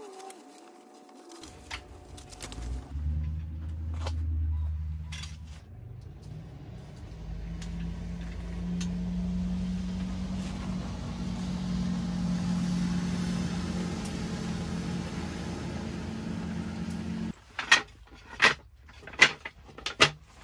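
Car engine running with a steady low hum that stops abruptly near the end, followed by several sharp knocks.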